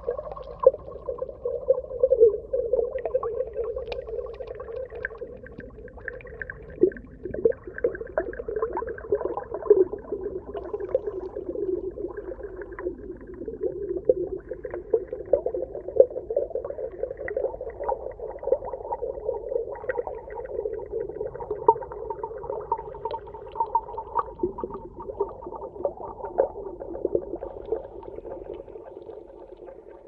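Muffled underwater ambience: a steady low hum of water with frequent small crackles and pops.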